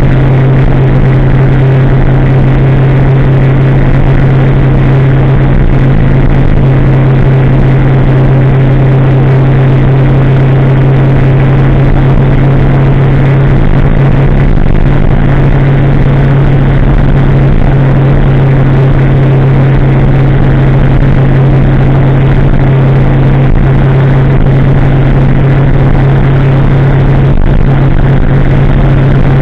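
2016 Kawasaki ZX-10R's inline-four engine, breathing through a de-catted aftermarket exhaust, running loud at a steady pitch while the bike cruises, with no rises or drops in revs.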